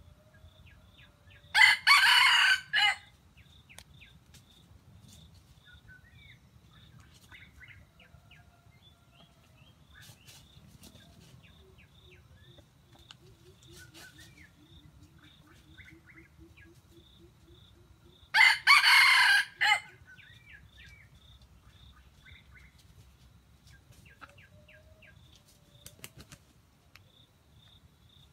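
Red junglefowl rooster crowing twice, each crow a short loud call about a second and a half long, the second about sixteen seconds after the first. A faint high ticking repeats steadily underneath.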